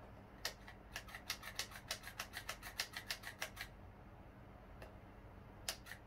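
Gel ball speed loader clicking as it is pushed to feed gel balls into a gas blow-back pistol magazine: a quick run of clicks, about six a second, for about three seconds, then two single clicks near the end.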